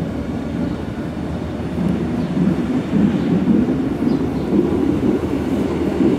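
Electric BLS GoldenPass train running along the track: a steady rumble that grows louder about two seconds in.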